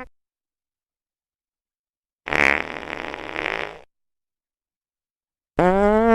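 Fart sound effects separated by dead silence: just over two seconds in, a rough, airy fart with no clear pitch lasting about a second and a half; near the end, a pitched fart whose tone rises.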